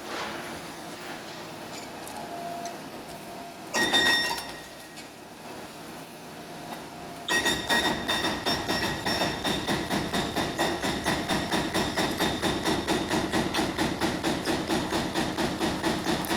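Demolition machinery at work: a single loud metallic clank about four seconds in, then from about seven seconds in a steady, rapid metallic hammering, about five blows a second.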